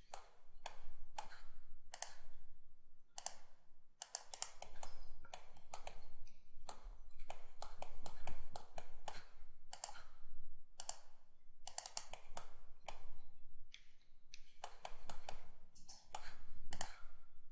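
Computer mouse and keyboard clicking in quick, irregular clusters of sharp clicks with short pauses between them.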